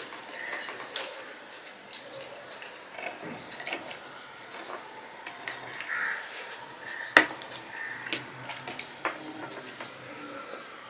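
Stainless steel serving bowl and plate clinking as rice is tipped onto the plate and worked by hand, with scattered light clicks and one sharp clink about seven seconds in.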